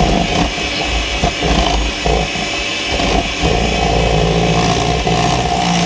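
Handheld electric mixer running steadily, its beaters whisking eggs into cupcake batter in a stainless steel bowl.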